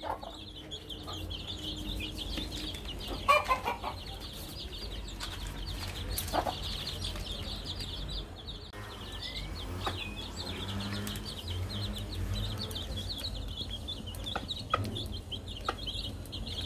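A brood of young chicks peeping constantly in quick high chirps while they feed, with a few short taps now and then.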